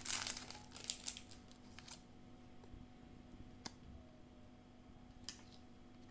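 Packaging being handled, rustling and crinkling for about two seconds, then a couple of faint clicks, like small plastic parts being handled.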